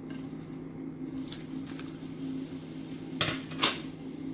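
Bay leaves and whole spices tipped from a plate into hot oil in a cast-iron kadai, with two sharp clatters about three seconds in over a steady low hum.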